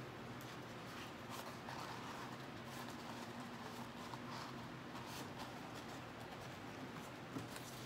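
Banana leaves rustling and crinkling softly as they are folded by hand to wrap cassava suman, over a faint steady hum.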